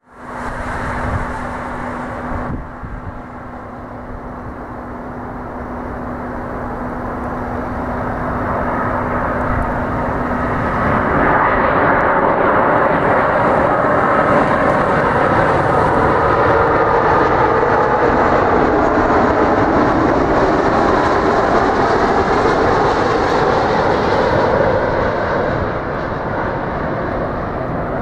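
Airbus Beluga XL's two Rolls-Royce Trent 700 turbofans on landing approach: a steady jet roar that grows louder over the first twelve seconds or so, then holds level as the aircraft comes close.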